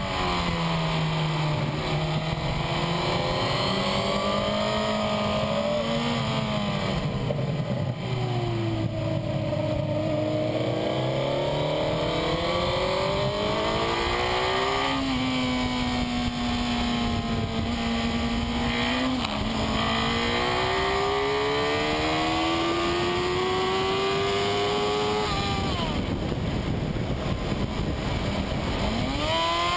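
Onboard sound of a racing superbike's engine, heard close from the bike itself. Its pitch falls as it slows for corners and climbs steadily as it accelerates, with sudden jumps in pitch at gear changes, over a constant rush of wind.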